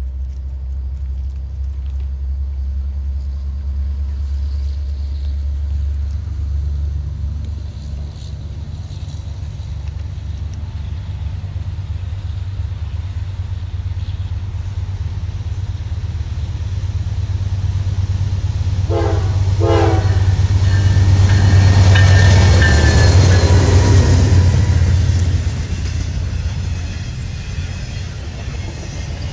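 Diesel freight locomotive approaching with a low engine rumble that grows louder. Its horn sounds two short blasts a little past the middle, then the locomotive passes loudly and the double-stack intermodal cars follow with a rolling rumble of wheels on rail.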